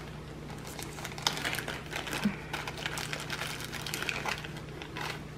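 Small plastic zip-lock bags crinkling and rustling as they are handled and opened, with a few light clicks.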